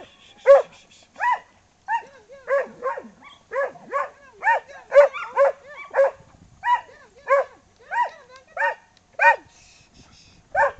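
Rough collie barking repeatedly at sheep while herding them, short sharp barks about two a second. The barking stops about a second before the end.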